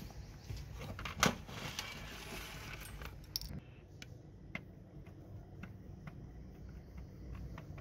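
Handling clatter from the plastic parts of an old Panasonic desk phone being taken apart: clicks and rattling as the LCD module and circuit board are lifted out, with one loud clack about a second in. From about three and a half seconds on, only faint scattered ticks as a screwdriver works the small screw of the speaker bracket.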